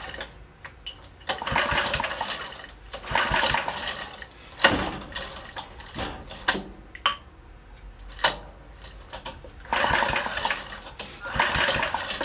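Briggs & Stratton single-cylinder engine being cranked by hand with its recoil pull-starter, several pulls in a row with short gaps between, turning over without catching and running.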